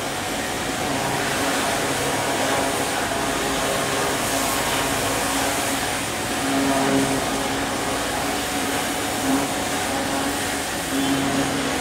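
Steady running machinery: a low hum with two pitched tones that swell and fade, under a broad, even hiss.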